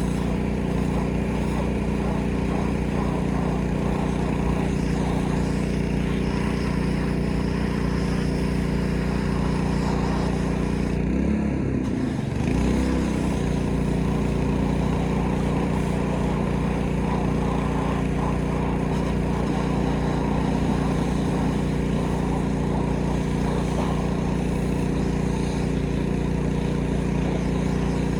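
Gas-engine pressure washer running steadily under load, with a brief dip and wobble in engine pitch about twelve seconds in before it settles back.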